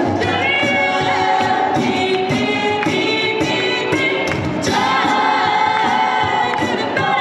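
Six-voice a cappella group singing in close harmony through handheld microphones and PA speakers, with vocal percussion keeping a steady beat under the chords.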